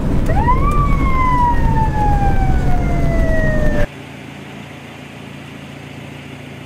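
Mitsubishi L300 ambulance siren giving one wail: a quick rise, then a slow falling tone lasting about three seconds, over loud road and engine noise. It cuts off abruptly about four seconds in, leaving only a quieter steady low hum.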